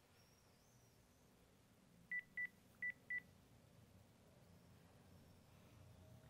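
Digital clinical thermometer beeping: four short high beeps in two quick pairs, about two seconds in, signalling that the reading is done.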